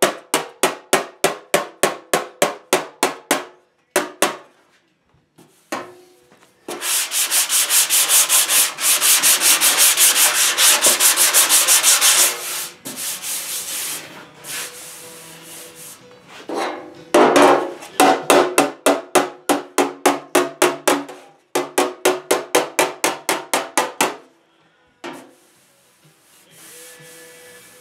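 Body hammer tapping dents out of a 1963 Chevy C10 steel fender over a hand-held dolly: quick runs of sharp metallic taps, three to four a second, with a slight ring, at the start and again past the middle. In between, about five seconds of fast, steady rubbing as the panel is hand-sanded.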